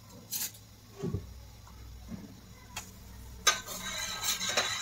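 A few light clicks and knocks, then from about three and a half seconds in a metal spoon scraping and clinking against a steel saucepan as coffee is spooned in.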